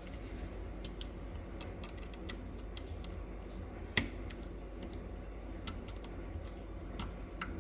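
Scattered small clicks and taps from hands working a neutral wire and a GFCI receptacle, with one sharper click about four seconds in.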